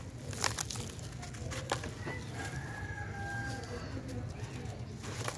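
Dry sand-cement chunk crumbling in the hands, gritty crackles and falling grains pattering into wet cement paste, mostly in the first two seconds and again near the end. In the middle a rooster crows.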